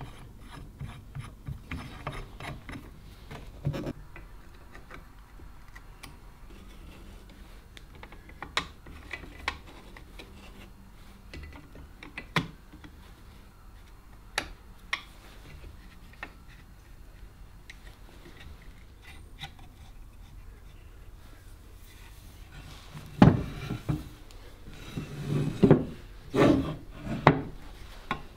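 Light, scattered metal clicks and knocks of a Stanley Bedrock No. 608 jointer plane being reassembled and adjusted, its front knob screwed down and its blade set. Near the end come several louder strokes of the plane over a wooden board.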